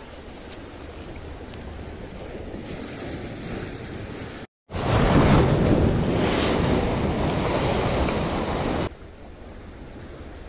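Sea surf and wind rushing steadily, with wind on the microphone. After a brief dropout about four and a half seconds in, the rushing is much louder for about four seconds, then falls back.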